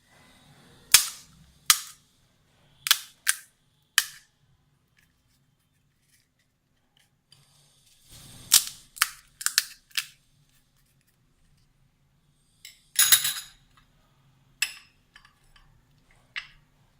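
Crisp golgappa (pani puri) shells cracking sharply as holes are broken into them for filling. About a dozen short cracks come in clusters, with a longer crunch partway through.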